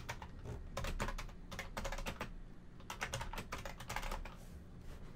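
Typing on a computer keyboard in several short bursts of keystrokes.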